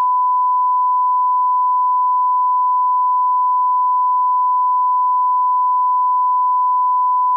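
Steady 1 kHz line-up test tone, one unbroken pure tone played with colour bars as the audio reference level at the head of a video master.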